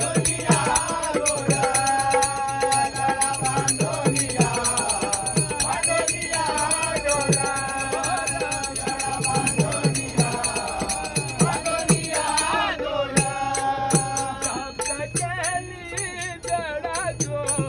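A group of men singing a Marathi bhajan together, accompanied by handheld brass cymbals (taal) ringing on the beat, hand claps and a low steady beat. The singing and cymbals run continuously, with a brief dip in the high cymbal ringing about two-thirds of the way through.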